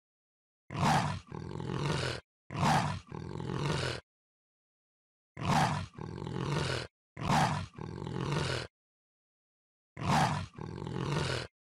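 Leopard calling: three pairs of coarse roaring calls a few seconds apart. Each pair is a short loud call followed by a longer rasp, and every pair is the same.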